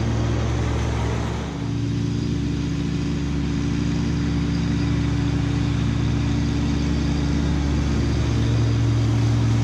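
Kubota B2601 compact tractor's three-cylinder diesel engine running steadily under load while it drives a finish mower through long grass. There is a brief dip about one and a half seconds in, and it grows a little louder near the end.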